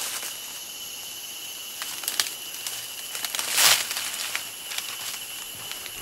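Dry leaf litter rustling and crackling as a stick is worked under a pit viper on the forest floor, with a few light clicks and one loud rustling swish about three and a half seconds in.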